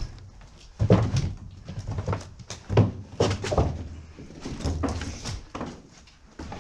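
Irregular footsteps and scuffs in an enclosed shelter tunnel: a string of short knocks, roughly one every half second to a second.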